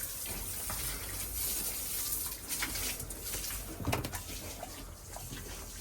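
Water from a hose splashing onto the manure and floor of a pigsty, with a few scattered knocks and short sounds over the steady splashing.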